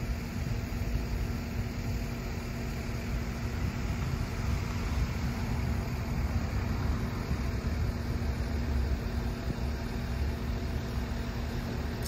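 Steady street traffic rumble, with a low steady hum over it.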